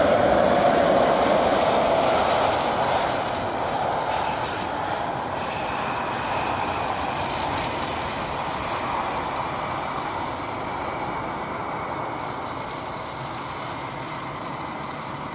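Airliner's engines loud at first, then slowly fading as it moves away, with a thin steady whine over the rumble.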